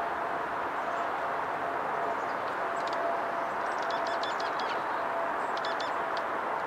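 Black-capped chickadees calling: a quick run of high notes about three seconds in, a string of repeated notes around four seconds, and a short burst near six seconds. Under them runs a steady background hiss with a faint hum.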